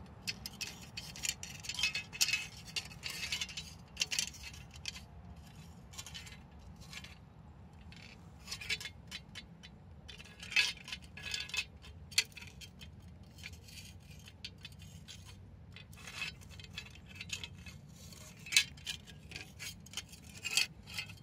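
A metal tool scraping and clinking against a thin metal dish, working at burnt motor oil residue in intermittent scratchy strokes with short pauses between.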